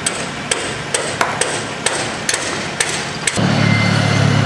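About six irregular hammer blows on metal fittings as workers take down the old signs. About three seconds in, the blows give way to a steady vehicle engine hum.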